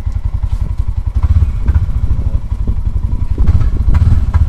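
Arctic Cat Prowler HDX 700 side-by-side's single-cylinder engine running with a steady low pulse, heard from the driver's seat, with the cab clattering and thumping and the engine swelling louder about a second in and again near the end.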